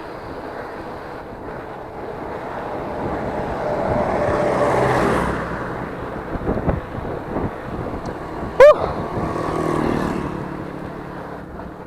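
Wind on the microphone and traffic passing on the highway. The road noise swells about four seconds in, and again near the end with an engine's hum. About two-thirds of the way through there is one short, loud, rising-pitched sound.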